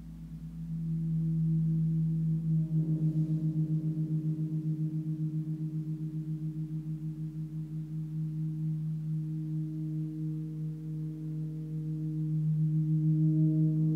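Large gong tuned to G#, rubbed with a small ball-headed friction mallet, giving a sustained, gently pulsing drone of low tones. The drone swells about a second in and again near the end.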